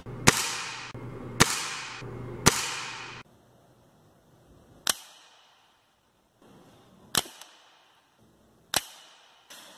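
Gamo CFX nitro-piston air rifle firing .177 pellets: a series of sharp single cracks. Three loud ones come about a second apart over a hiss in the first three seconds, then fainter ones a second or two apart.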